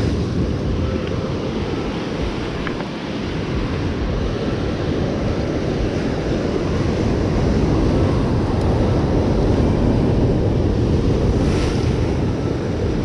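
Ocean surf breaking and washing over rocks, a steady rush that swells a little past the middle, with wind buffeting the microphone.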